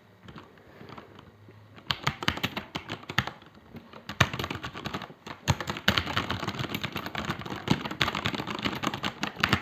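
Typing on a HyperX Alloy Elite mechanical keyboard with Cherry MX Red linear switches: a few light keystrokes, then fast continuous typing from about two seconds in.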